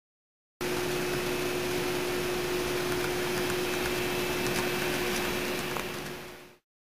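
Model locomotive running along its track: a steady hum over hiss with a few faint ticks. It fades out near the end.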